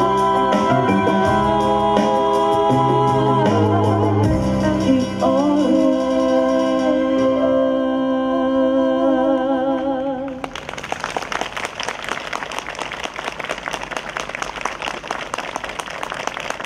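Vocal ensemble with keyboard accompaniment holding the final chord of a song, which stops about ten seconds in; audience applause follows.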